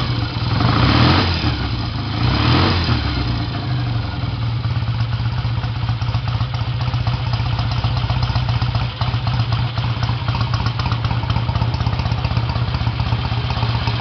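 1968 BSA A50 Royal Star's 500 cc parallel-twin engine, freshly rebuilt, running solid at idle. It swells twice in the first few seconds, then settles to a steady, even idle.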